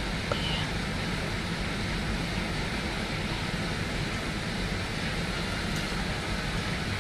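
Heavy rain falling during a thunderstorm, a steady, even hiss.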